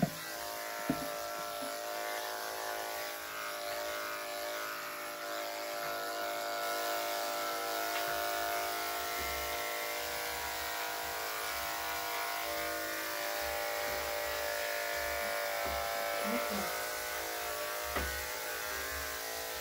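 Electric dog grooming clippers running with a steady hum as they are worked through the dog's coat, with a single click about a second in.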